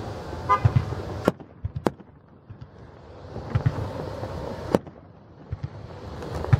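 Aerial fireworks shells bursting overhead: a series of sharp bangs and deeper thumps at irregular intervals, a second or so apart.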